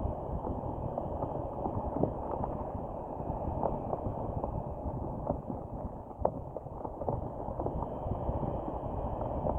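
Heavy hurricane-driven surf breaking and washing over rocks, a steady low roar of crashing waves. A couple of sharp knocks stand out, about two seconds in and about six seconds in.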